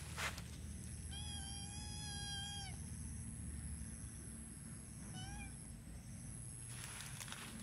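A cat meowing: one long, even meow about a second in, then a short meow that rises and falls about five seconds in.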